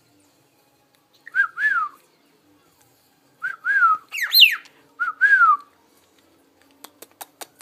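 Pet cockatiel whistling: short whistled notes in pairs, each gliding up and then down, with one louder, higher whistle in the middle. A quick run of sharp clicks follows near the end.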